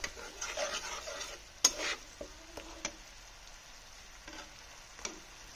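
Metal spatula stirring and scraping a sizzling onion-and-spice paste as it fries in oil in a frying pan. There is one sharp knock about a second and a half in and a few lighter taps, and then the stirring eases off, leaving a faint steady sizzle.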